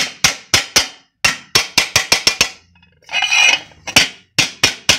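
A wooden block striking a pressure cooker lid held in an iron die, in quick repeated blows about four a second, with a short pause and a brief burst of noise a little past the middle. The lid's warped rim is being beaten back into shape so it sits firmly in the die.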